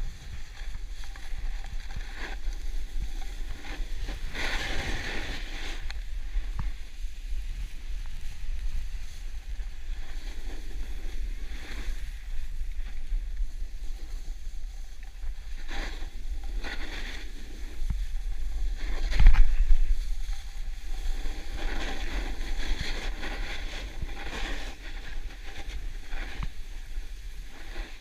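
Wind rumbling on a GoPro microphone during a downhill run on a groomed ski slope, with the hiss of a rider's edges sliding and scraping over packed snow swelling and fading with the turns. A stronger gust about two-thirds of the way through is the loudest moment.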